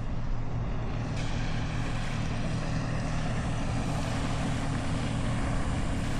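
A motor running steadily at constant speed: an even low hum with a rushing hiss over it that grows brighter about a second in.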